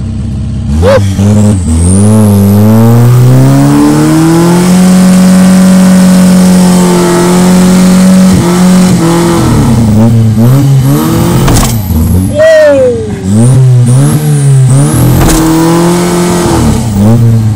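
Ford Fiesta's carburettor-fed turbocharged engine revved hard. The revs climb about a second in, hold high for several seconds, then rise and fall repeatedly, with a high turbo whistle rising and falling with them.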